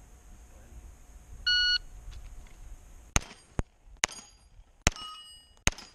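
A shot-timer start beep, then, about a second and a half later, a Glock pistol fires five quick shots at steel plates. Thin ringing trails after several of the shots as the steel plates are hit.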